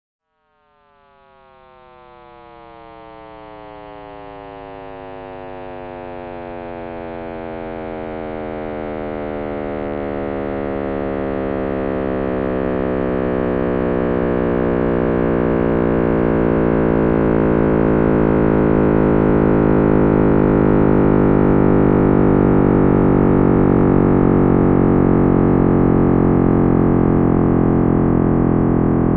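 Audio rendering of the cosmic microwave background: a synthetic drone of many stacked tones over a low hum, swelling slowly from nothing over about twenty seconds and then holding steady.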